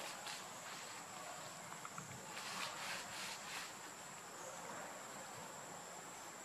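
Steady high-pitched insect drone of forest insects, with a few faint soft clicks or rustles about two and a half to three and a half seconds in.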